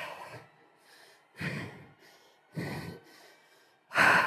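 A woman's short, forceful exhalations, four of them about one every second and a half, the last the loudest: breaths of effort timed to each rep of explosive push-ups from the knees.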